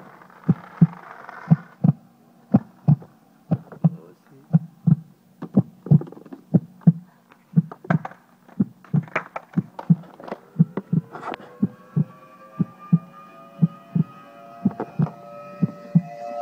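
Heartbeat sound effect: a steady double thump repeating about every two-thirds of a second. About ten seconds in, a drawn-out tone rises slowly in pitch underneath and holds toward the end.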